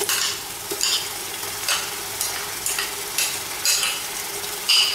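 Sliced onions frying in oil in an aluminium pot, a steady sizzle, while ginger-garlic paste is added. A spoon scrapes the paste out of a bowl in a string of short strokes.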